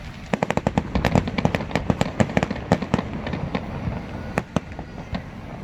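Aerial fireworks crackling: a rapid run of sharp pops that starts just after the beginning, is densest over the first three seconds, then thins out to scattered pops.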